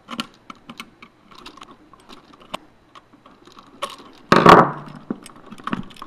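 Screwdriver clicking and scraping on the brass terminal screws of a standard wall outlet as the screws are undone and the white neutral wires worked off: a string of small light clicks, with one loud knock about four and a half seconds in.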